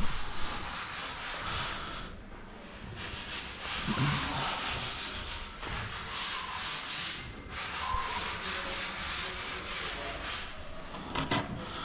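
Sandpaper rubbed back and forth by hand over wood in quick repeated strokes, with a brief pause about two seconds in: the wooden cabinet doors are being sanded smooth and even before painting.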